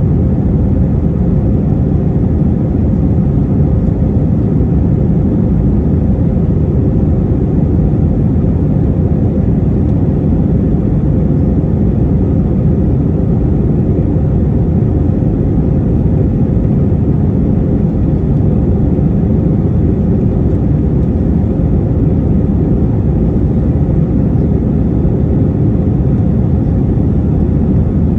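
Steady cabin noise of an Airbus A321-231 in flight: its IAE V2500 turbofans running and air rushing past the fuselage, deep and unchanging, with a faint steady hum above.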